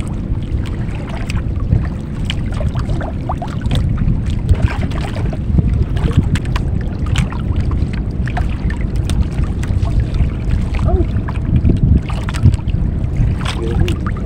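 Wind noise on the microphone over water slapping and lapping against the hull of a small outrigger boat on choppy sea, with irregular small splashes.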